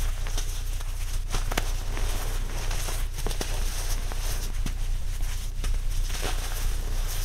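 Hands crumbling and squeezing lumps of dyed baking soda, with soft crunches and small sharp crackles as the chunks break and the powder sifts down. A steady low hum runs underneath.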